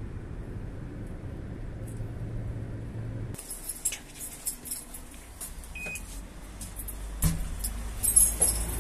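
A low steady hum, then, after about three and a half seconds, handling noise of keys jangling and clicking, with a short high beep and a louder knock near the end.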